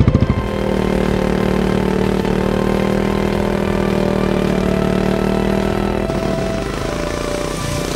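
Royal Enfield Bullet's single-cylinder engine held at high, steady revs while the rear tyre spins in a burnout. The pitch shifts and the level eases slightly about six seconds in.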